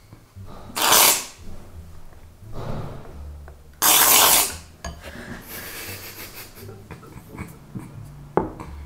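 Aerosol foam can spraying foam into a bowl in two short hissing bursts, about a second in and about four seconds in, the second one longer. A short sharp click near the end.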